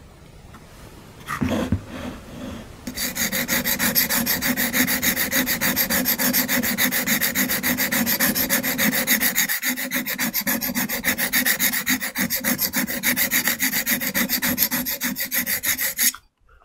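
Steel bull nose chisel (aisuki) being stroked back and forth on a medium sharpening stone: a fast, even scraping of metal on stone at several strokes a second. It starts about three seconds in, pauses briefly partway through, and stops suddenly just before the end.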